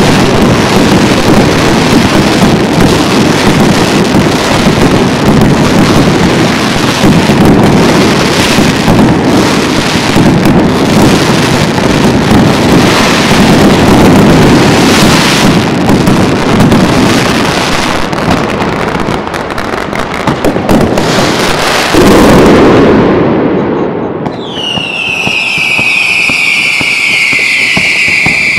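Professional fireworks display: a dense, continuous barrage of overlapping firework bangs and crackles. About 22 seconds in the barrage ends in a last loud burst. Soon after, a long high whistle starts and slowly falls in pitch.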